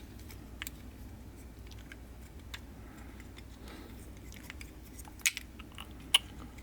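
Faint clicks and light taps of small metal carburetor parts being handled and fitted together during reassembly, with two sharper clicks near the end.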